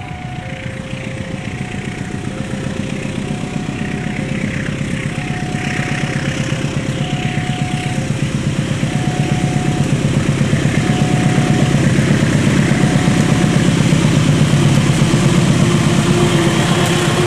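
Diesel-electric locomotive approaching at the head of a passenger train, its engine growing steadily louder. Under it, a two-note electronic warning tone alternates about once a second, fading out near the end.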